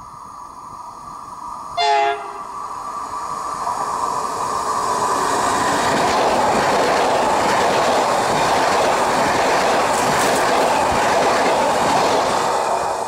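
ED250 Pendolino electric multiple unit gives one short horn blast about two seconds in as it approaches, then runs through at speed: a rushing sound of wheels on rail and air builds up over a few seconds and stays loud and steady.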